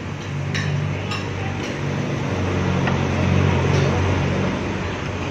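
Metal cutlery clinking against plates, a few sharp clinks spread through, over a steady low hum.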